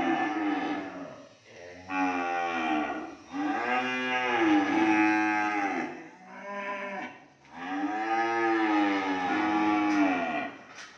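Cattle mooing: a string of long, loud moos, each rising and then falling in pitch, with a shorter moo about six and a half seconds in.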